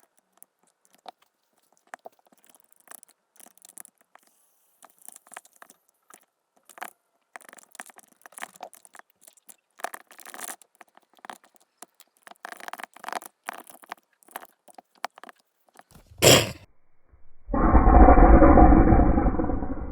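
Slime being worked by hand: faint, scattered crackling and scraping. About three-quarters of the way through comes one sharp loud noise, then a loud rough sound that runs on to the end.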